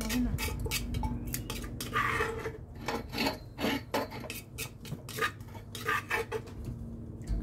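A spoon scraping and knocking against a clay mortar as papaya salad is scooped out and served onto a plate: a run of short clinks and scrapes, with a longer scrape about two seconds in.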